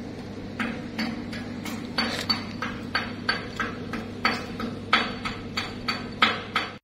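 A string of light, sharp metallic clicks and knocks, irregular at two or three a second, over a steady low machinery hum.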